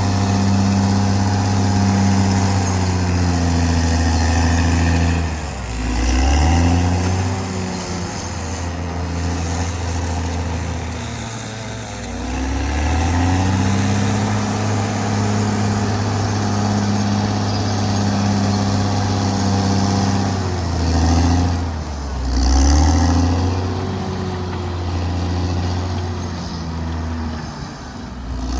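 Caterpillar D6R XL bulldozer's diesel engine working under load, its pitch sagging and climbing back several times: about 5 seconds in, around 12 seconds, twice between 20 and 23 seconds, and again near the end.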